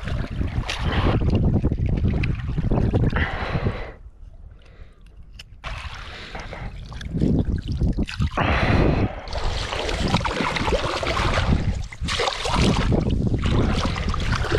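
Shallow seawater sloshing and splashing as a freshly speared grey mullet is gutted and rinsed by hand, with wind rumbling on the microphone. There is a quieter lull about four seconds in.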